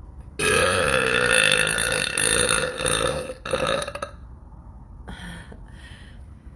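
A woman's long, loud burp about half a second in, lasting nearly three seconds with a wavering pitch, then a shorter second burp right after.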